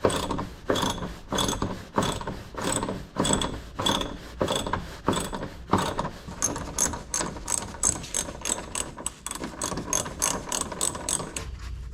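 Hand ratchet wrench clicking as it undoes the fasteners of a car's plastic underbody cover: a long run of quick, sharp clicks that gets faster about halfway through.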